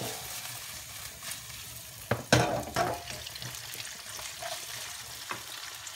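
Pieces of pork bacon sizzling as they fry in a nonstick frying pan, with a spatula scraping and knocking against the pan a few times while stirring, loudest a little after two seconds in.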